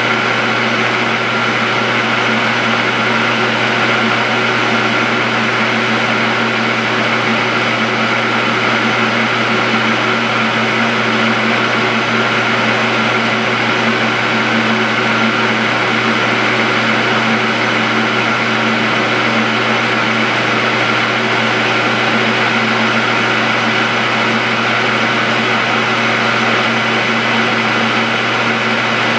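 Metal lathe running steadily, a steady hum, while its tool takes very light finishing cuts along a piston being turned to fit a cylinder bore.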